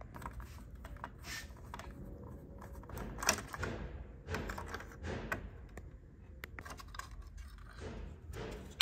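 Scattered light clicks and knocks from a screwdriver and hands working on the metal and plastic parts inside an opened laser printer, with one louder knock about three seconds in.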